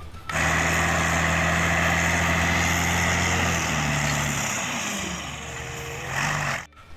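Truck engine sound effect, running steadily, then dropping lower in pitch about halfway through and cutting off suddenly near the end.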